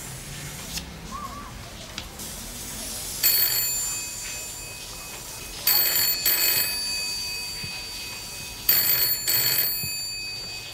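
A telephone ringing three times, a few seconds apart, starting about three seconds in; the later rings each come as a pair of short bursts, the British double ring.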